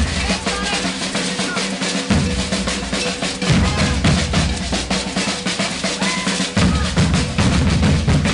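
Maracatu percussion ensemble playing: deep alfaia bass drums under fast, dense snare-drum strokes in a steady driving rhythm.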